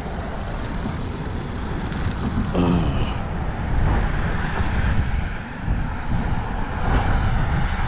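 A steady low rumble of traffic going by, with wind against the microphone. A short high-pitched sound cuts through about two and a half seconds in.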